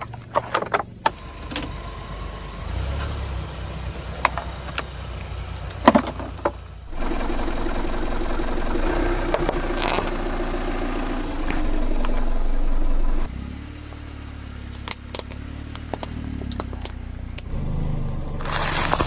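A car engine running, loudest and steadiest in the middle stretch, with scattered sharp clicks and scrapes before and after.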